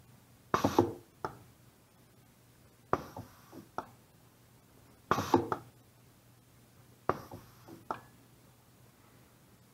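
Pneumatic trainer's 5/2 solenoid valve switching as electronic switches are pressed: four bouts about two seconds apart, each a sharp click with a short hiss of air, then a second click a moment later.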